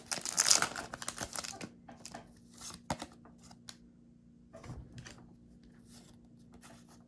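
Foil Pokémon booster pack wrapper crinkling and tearing open for the first second and a half or so, then softer scattered taps and rustles.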